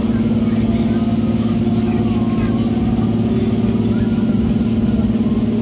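Passenger train running at steady speed, heard from on board: a constant drone with a strong steady hum.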